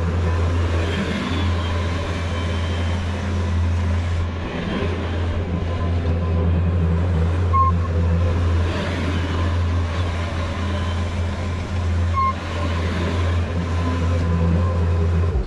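Steady low engine drone and road noise of a truck being driven, heard from inside the cab.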